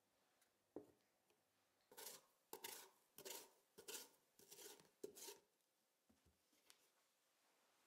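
Chef's knife scoring the cut face of a raw sweet potato half on a wooden cutting board: a quick run of about eight short, scratchy slicing strokes, quiet overall. A single knock comes a little under a second in, and a few light taps near the end.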